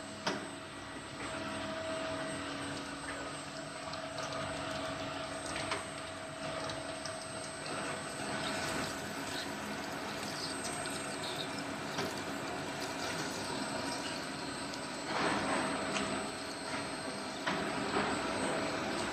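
Three-spindle multi-spindle drilling machine running, a steady machine hum with a few steady tones, as its drills cut into workpieces under coolant. Scattered clicks, and a louder rushing stretch about fifteen seconds in.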